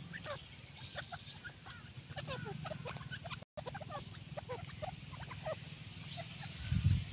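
Grey francolins giving soft, quick chirping and clucking calls while foraging: many short rising and falling notes in close succession. A low bump near the end is louder than the calls.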